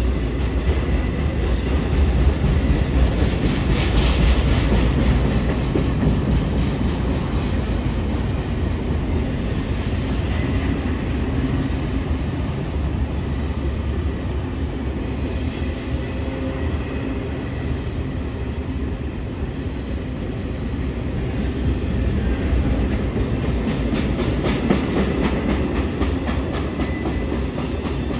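Freight train cars rolling past with a steady low rumble, the wheels clicking in quick runs over rail joints, most strongly a few seconds in and again near the end, under a faint thin wheel squeal.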